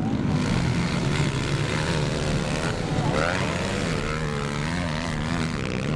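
Several motocross dirt-bike engines revving at once, their pitches rising and falling as the bikes accelerate and back off around the track.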